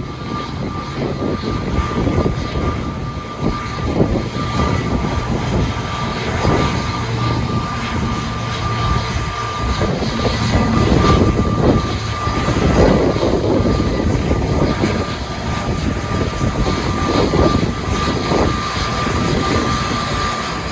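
Airbus A320neo's CFM LEAP-1A turbofan engines running with a steady high whine over a deep rumble, with gusts of strong wind buffeting the microphone.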